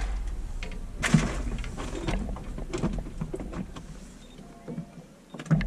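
Knocks and clatter of gear being handled in a fishing boat, with a few sharper bumps spread through and a low rumble underneath that fades away after about four seconds.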